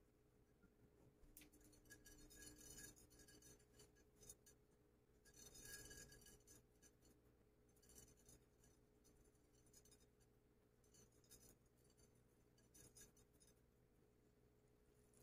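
Faint rubbing and scratching of fingers spreading butter over a glass baking dish, then light ticks of sesame seeds sprinkled onto the glass, in several short bursts.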